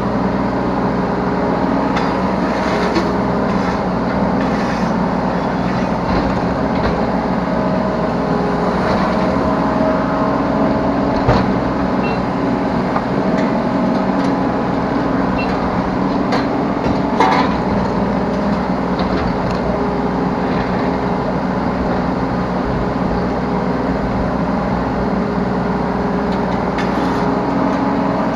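Yanmar B3Σ 3-ton mini excavator's diesel engine running steadily under working load, heard from the operator's seat. Two sharp knocks stand out, about eleven and seventeen seconds in.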